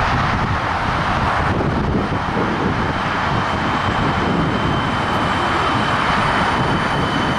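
Siemens Nexas electric multiple-unit train approaching along the platform, a steady rushing noise. A high, steady whine from its traction equipment joins in about five seconds in.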